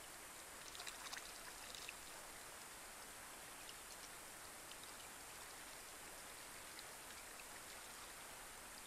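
Light rain falling on a pond: a faint steady patter with individual drops ticking on the water, and a brief cluster of louder, closer drips about a second in.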